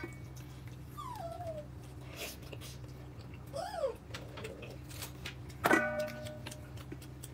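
A pet whining: short falling whines, then a rising-and-falling one, over a steady low hum. A little after halfway, a knock that rings briefly is the loudest sound.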